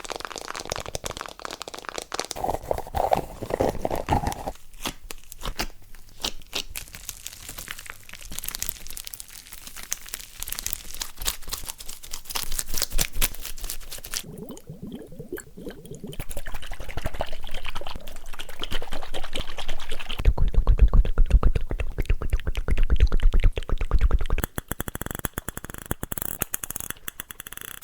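ASMR trigger sounds: fast trains of crackling, crunching clicks that change texture every few seconds, with a deeper rumbling stretch about two-thirds of the way in.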